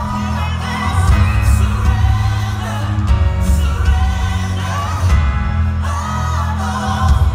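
Music with a singing voice over a loud, steady bass line.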